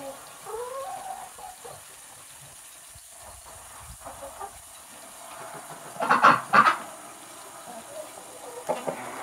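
Hens clucking and squawking, with a burst of several loud calls about six seconds in and a few more near the end.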